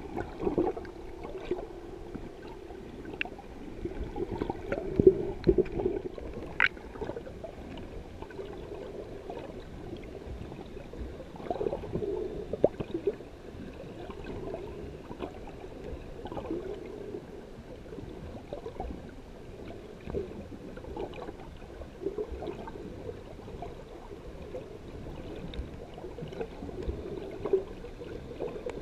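Muffled underwater sound picked up by a camera in a waterproof housing: water sloshing and gurgling in uneven swells, with scattered small clicks.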